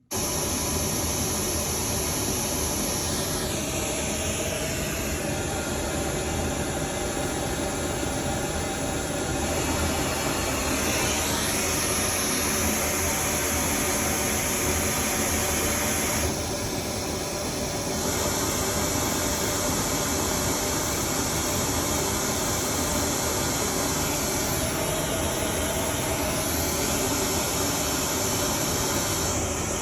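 Pink noise test signal played back: a steady, even hiss spread across all frequencies that starts abruptly. Its tone shifts slightly a few times in slow sweeps.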